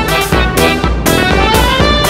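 Background music: an upbeat instrumental with a steady beat, about two beats a second.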